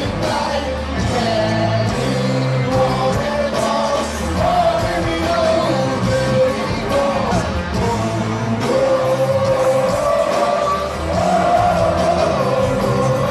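Live heavy metal band playing loud: a male lead vocal sung over heavily distorted electric guitar, bass and drums. It is recorded from the audience in a large stadium.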